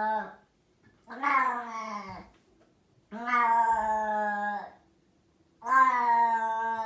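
Long-haired cat meowing loudly in long, drawn-out calls. The end of one meow is followed by three more, each held at a fairly steady pitch for a second or more with short pauses between. It is the cat complaining that its food is gone.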